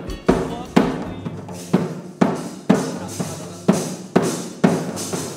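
Drumming in a steady beat, about two strong hits a second.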